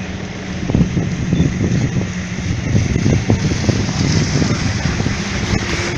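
Motorboat engine running with a steady hum, under wind buffeting the microphone.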